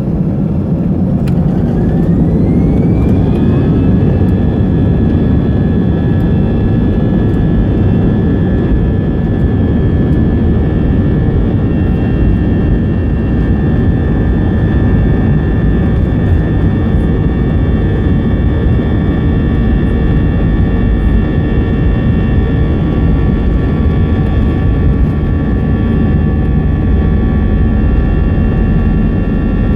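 Airbus A320 jet engines heard from inside the cabin, spooling up: a rising whine over the first few seconds levels off into a steady high whine over a loud, even rumble, typical of engines set to takeoff thrust for the takeoff roll.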